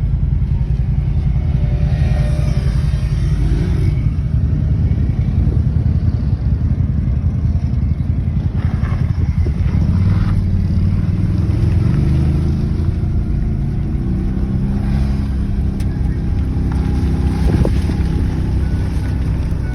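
Ford's engine running under load, heard from inside the cab while driving an off-road trail, rising in pitch about ten seconds in. Near the end a seatbelt warning chime starts beeping.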